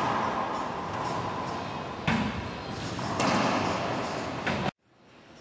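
Racquetball rally: the ball struck by racquets and slamming off the court walls, about four sharp cracks with a hollow echo from the enclosed court. The sound cuts off suddenly near the end.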